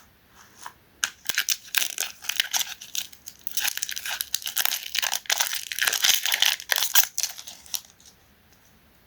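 KitKat wrapper being crinkled and torn open: a dense run of quick crackles and tearing noises starting about a second in and stopping near the end.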